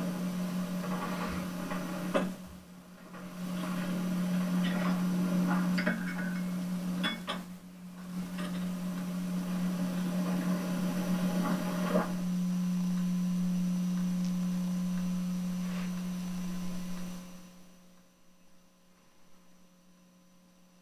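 A steady low hum with a few short clicks over it, which stops about seventeen seconds in, leaving near silence.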